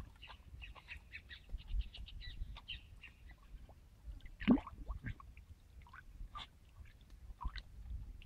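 Birds chattering in fast runs of short chirps, with one loud call that slides down in pitch about four and a half seconds in and scattered single chirps after. Beneath, water sloshes lightly in a metal stock tank as a dog wades and dips its head in it.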